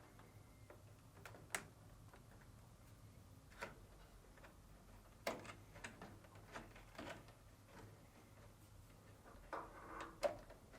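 Faint, scattered clicks and light plastic taps from electrical connectors and wiring being pushed into place on a dryer's control panel, with a cluster of sharper clicks near the end.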